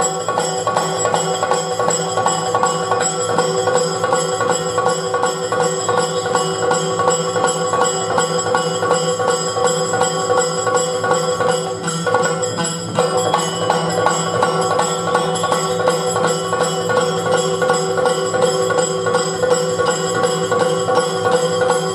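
Yakshagana background ensemble playing a fast dance rhythm: maddale and chande drums struck rapidly over a steady drone, with jingling bells.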